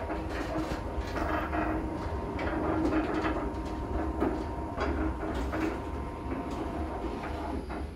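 Motorised automatic sliding steel gate rolling open along its ground rail: a steady rolling rumble with rattling and light clicks from the gate's wheels and frame.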